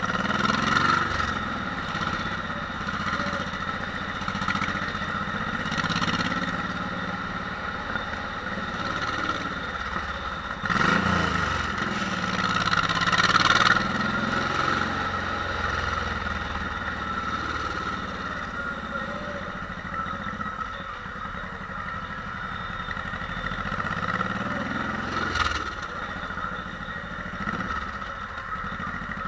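Honda VTX 1800's big 1.8-litre V-twin engine running under way in slow traffic. Its pitch rises and falls several times as the throttle is opened and closed, with the strongest run-up about eleven to fourteen seconds in.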